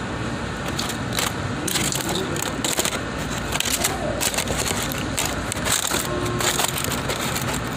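Food packaging crinkling and rustling as it is handled close to the microphone, a run of sharp crackles over a steady air-conditioning hum.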